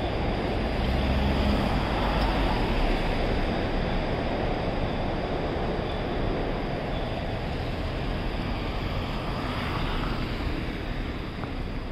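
City street noise: a steady rumble of road traffic, heaviest in the first few seconds and easing slightly toward the end.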